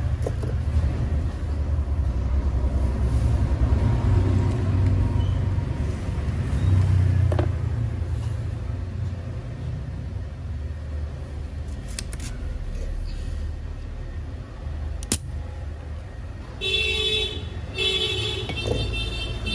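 A spring-loaded desoldering pump snaps a few times as solder is sucked off a circuit board, over a steady low rumble of passing road traffic. A vehicle horn honks twice near the end.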